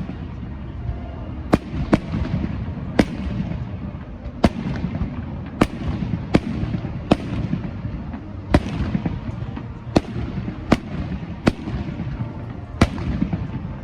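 Fireworks going off: a run of sharp bangs, about one a second at uneven spacing, each with a short echoing tail, over a continuous low rumble.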